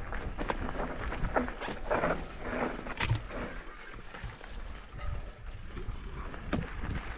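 Mountain bike ridden downhill on a rough dirt trail: tyres rolling over stones and the bike rattling with irregular knocks, over a steady low rumble of wind on the microphone.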